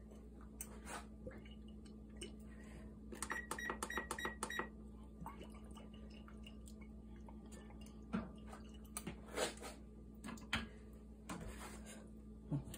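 A quick run of about six electronic beeps from a kitchen appliance's touch controls, about four a second, a little over three seconds in. A low steady hum runs under it, and a few light knocks come in the second half.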